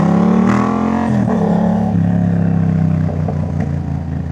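Yamaha MT-07's 689 cc parallel-twin running through a full Jeskap aftermarket exhaust while the bike is ridden. The revs climb for about a second and dip sharply just after, then hold steady before easing off about three seconds in.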